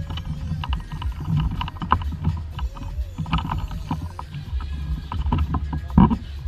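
Water slapping and lapping against a small fishing boat's hull, with scattered small knocks and clatter and one louder knock near the end.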